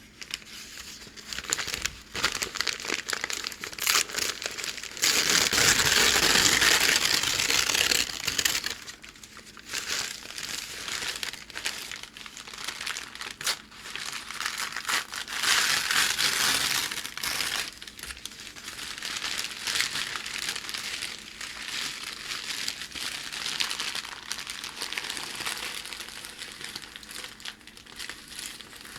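Packing paper crinkling and crackling as it is handled by hand. The crumpling is loudest from about five to eight seconds in and again around fifteen seconds, then settles into softer, continuous crinkling.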